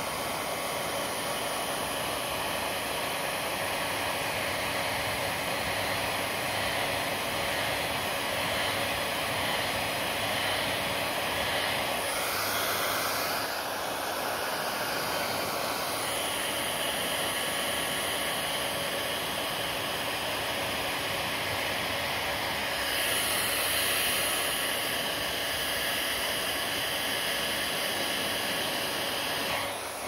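Handheld hair dryer blowing steadily on wet hair, a continuous rush of air whose tone shifts a couple of times as the dryer is moved around the head.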